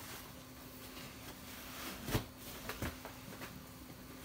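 Leather work boot being pulled onto a foot: faint rustling and scraping of leather, with two dull knocks about two seconds in and a little after, as the foot settles into the boot.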